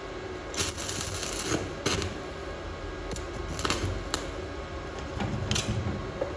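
Stick welding arc crackling in short, irregular bursts as the electrode is struck on a steel beam and goes out again, an arc that won't hold steady.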